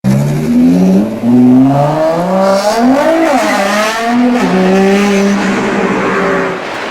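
Mercedes-Benz E63 AMG twin-turbo V8 engine, Stage 2 tuned with an aftermarket exhaust, revving: its note climbs and falls in pitch several times, holds steady from the middle on, and drops away just before the end.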